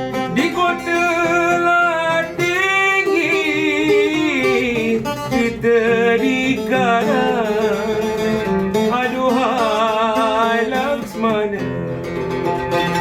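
Malay song: a singer holding long, ornamented notes with wavering pitch over plucked-string accompaniment. About eleven seconds in the voice stops and the strings carry on alone.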